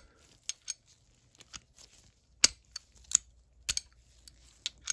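Sharp metal clicks and clacks at irregular intervals as a socket is pushed onto and pulled off the drive anvil of a Stanley 91-929 3/8-inch ratchet. The socket comes free without the quick-release button being pressed, so the retention ball does not hold it.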